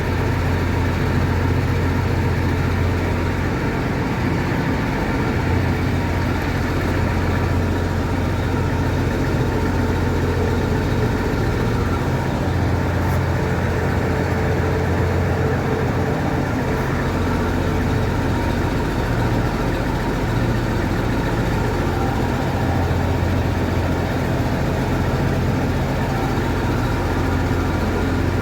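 Combine harvester's engine running steadily, its low hum wavering now and then.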